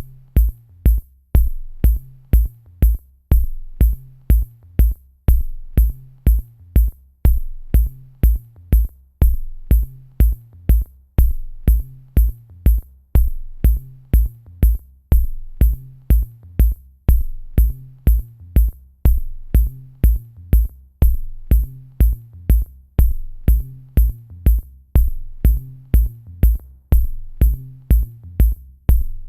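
Electronic background music with a drum-machine beat: a deep kick and a sharp high tick about twice a second over a repeating bass line.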